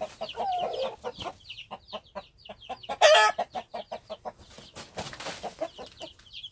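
Two Cheonggye mother hens fighting, with a run of short clucks and sharp calls, a loud squawk about three seconds in and a brief scuffling rustle around five seconds.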